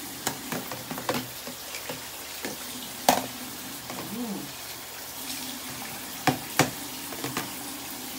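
Running water hissing steadily, with splashing and scattered sharp knocks: the loudest about three seconds in and two close together just past six seconds.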